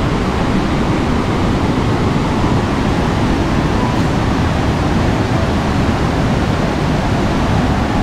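Steady rush of a waterfall cascading over rock ledges into a river: a loud, even noise that does not change.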